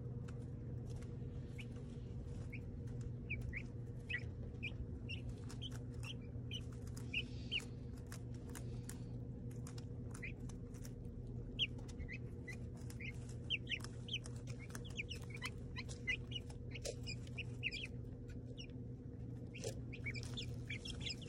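Young chickens peeping and chirping in many short calls close to the microphone, with scattered clicks and taps as they peck at and brush against the phone. A steady low hum runs underneath.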